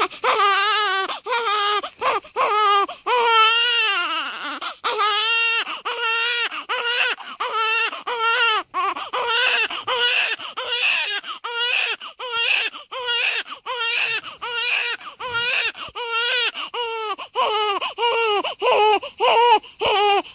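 An 18-day-old newborn baby crying: a long, unbroken run of short, wavering wails, one after another with quick breaths between them.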